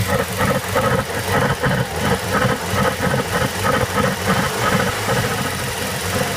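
VW/Audi turbocharged engine running with a rhythmic surging noise from the air filter, about two to three pulses a second. The noise is the sign of a weak N249 turbo diverter valve that can no longer hold the valve closed.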